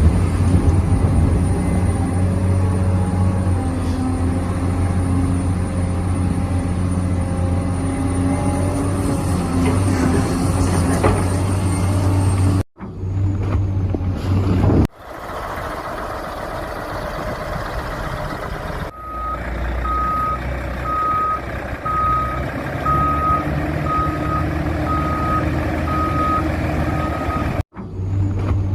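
Radio-controlled construction models running, with a steady engine-like hum and a thin high motor whine. In the second half a reversing alarm beeps steadily, a little more than once a second. The sound changes abruptly a few times.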